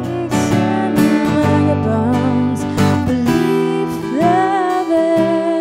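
Background music led by a strummed acoustic guitar, with a melody line that holds a long note from about four seconds in.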